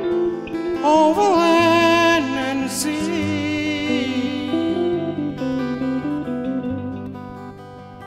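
Acoustic guitar music in a slow instrumental passage: held low bass notes under a melody that bends and wavers in pitch.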